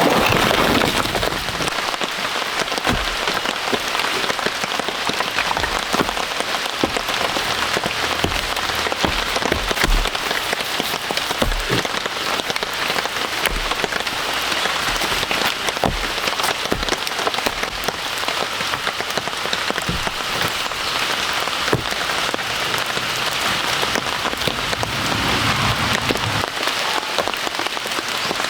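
Heavy rain falling steadily: a dense, even hiss with individual drops striking sharply here and there.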